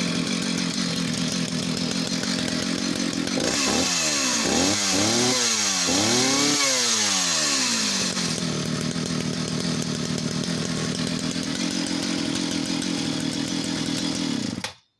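Jonsereds 751 vintage two-stroke chainsaw idling, then revved in about four quick throttle blips, the last the highest, before settling back to idle. Near the end the engine cuts off suddenly.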